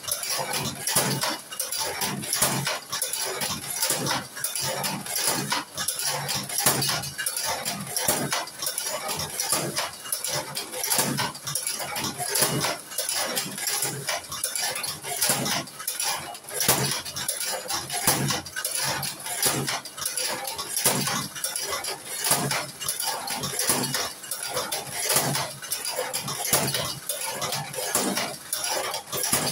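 Cigarette tobacco-filling machine worked over and over: a continuous run of rapid metallic clicks and clacks as each cigarette tube is filled.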